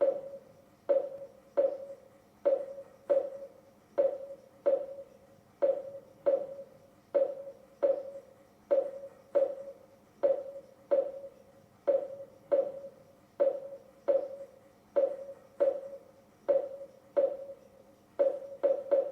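Heart-rate monitor beeping in time with a heartbeat: a short mid-pitched electronic tone repeating at about 75 beats a minute. The beeps quicken sharply near the end, the heart rate speeding up.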